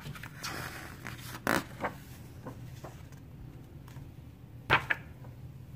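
A picture book's paper page being turned by hand: a rustle and swish in the first second and a half, then a few sharp taps, the loudest about three-quarters of the way through.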